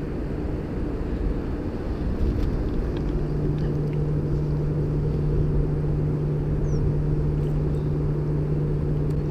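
Steady low engine drone, with a deeper hum joining about three seconds in and holding steady.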